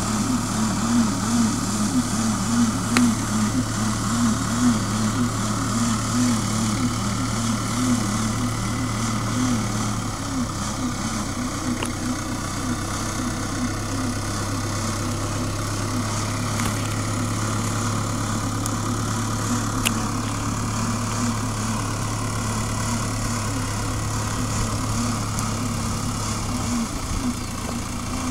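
Tractor engine running steadily under light load, with a pulsing, wavering hum in the first ten seconds that fades about ten seconds in.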